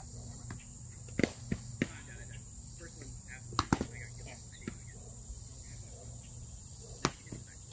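Foam-padded sparring swords striking in quick sharp smacks: a few about a second in, a fast cluster of three around three and a half seconds, and a single one near the end. Underneath, a steady high drone of insects.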